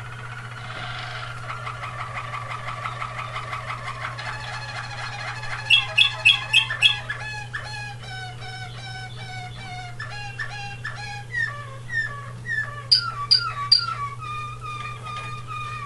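Waterslager (Malinois) song canary singing a continuous song of rapid repeated notes and rolling trills. It has two louder bursts of sharp, high notes, five quick ones about six seconds in and three near thirteen seconds. A steady low hum runs underneath.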